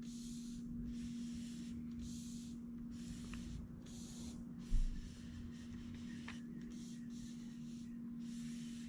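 Tape measure blade being slid out of its case in a series of short pulls, a soft rubbing hiss about once a second, over a steady low hum. There is a dull thump about five seconds in.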